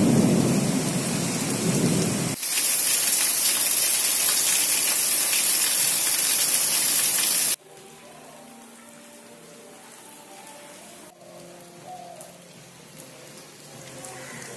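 Heavy rain pouring down, with thunder rumbling in the first couple of seconds. The rain then goes on as a loud, steady hiss. About halfway through, the sound drops suddenly to a much fainter rain ambience.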